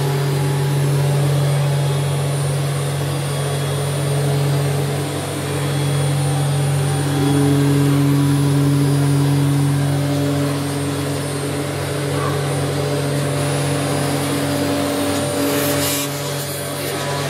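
Automatic-tool-change CNC router spindle running and cutting plastic sheet, a steady mechanical hum. A second, higher steady tone comes in about seven seconds in and drops out near the end.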